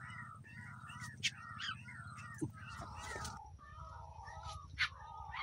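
Repeated short chirping calls from an animal, several a second, over a low steady rumble, with two sharp ticks about a second in and near the end.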